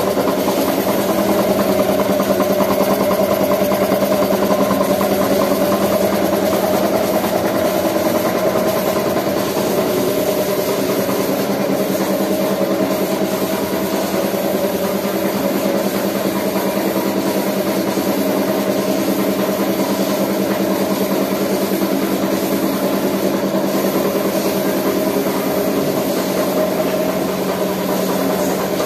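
Belt-driven piston air compressor, driven by an electric motor, running steadily with an even, unbroken drone.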